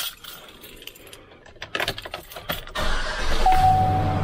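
Clicking and rattling, then about three seconds in the truck's 6.0L V8 gasoline engine cranks and starts, running loud and steady with a steady high tone over it.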